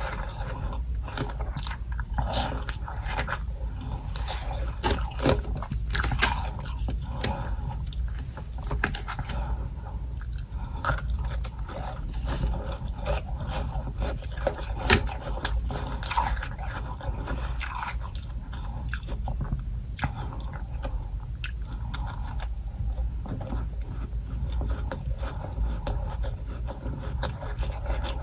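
Close-up biting and chewing of freezer frost: irregular crunches and crackles throughout, the loudest about halfway through, over a steady low hum.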